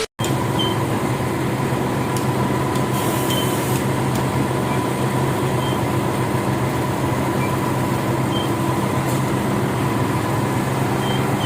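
Heavy diesel engine of construction machinery running steadily at a constant speed.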